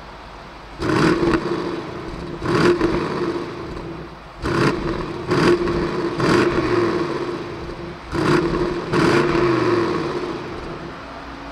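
BMW 750i's 4.4-litre twin-turbo V8 revved while parked: about seven short, sharp throttle blips heard from the exhaust, each rising suddenly and falling back toward idle before it settles to a steady idle near the end.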